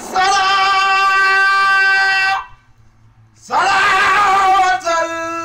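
A man's unaccompanied voice chanting Islamic devotional verse, holding one long steady note for about two and a half seconds, then after a short breath a second long note that wavers slightly.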